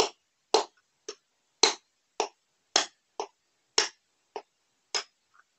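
Hammer striking a steel axle used as a drift, about two sharp blows a second, ten in all, driving the worn 6301 ball bearing out of a motorcycle front wheel hub.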